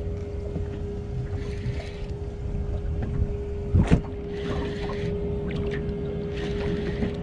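Wind on the microphone and water against a small boat's hull as an angler fights a fish, over a steady hum. Short bursts of a spinning reel being wound come every couple of seconds, and a knock sounds about four seconds in.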